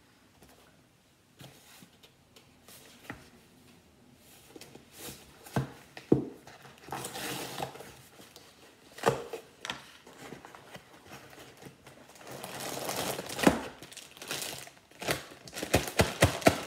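Plastic Ziploc bag crinkling and rustling as it is pulled from its cardboard box and shaken open, with a few sharp knocks of the box against the tabletop.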